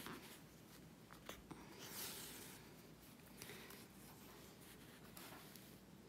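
Faint rustling and soft swishes of embroidery floss being drawn through a knitted doll's face with a needle, fingers handling the thread and fabric; the clearest swish comes about two seconds in.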